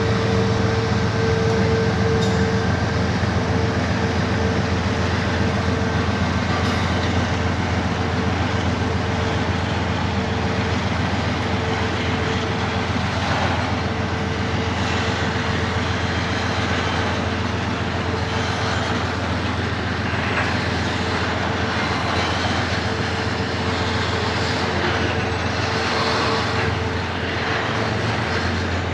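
Narrow-gauge diesel-electric freight locomotives running steadily as they haul a long train: a deep engine drone with a steady whine over it.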